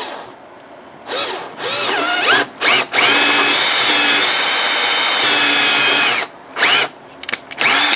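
Power drill boring a small bit into the rusted, seized end of a brake bleeder screw on a caliper to find its centre hole. It runs in short trigger bursts with the motor speeding up and slowing, holds a steady run for about three seconds in the middle, then gives a few more short bursts near the end.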